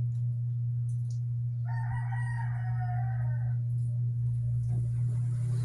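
A rooster crowing once, a single call lasting about two seconds that starts about two seconds in, over a steady low hum.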